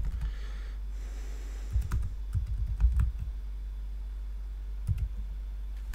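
Typing on a computer keyboard: a quick run of keystrokes about two seconds in, then a single click near the end, over a steady low hum.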